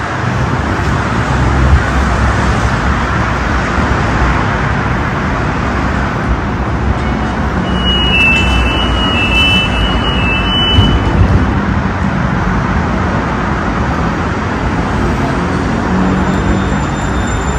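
Steady city street traffic noise, an even rumble and hiss of passing vehicles. A short run of high beeping tones comes in about eight seconds in and lasts some three seconds.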